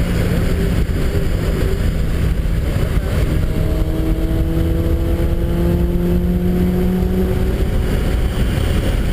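Car engine heard from inside the cabin on a wet track, its pitch climbing steadily for several seconds under acceleration and then dropping off as the driver lifts or shifts, over a steady rush of road noise.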